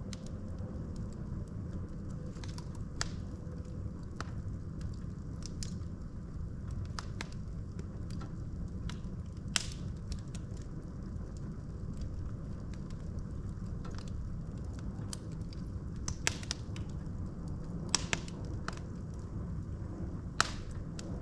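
Wood fire burning in a fireplace: a steady low rumble of flames with irregular crackles and sharp pops from the logs, a few louder snaps scattered through.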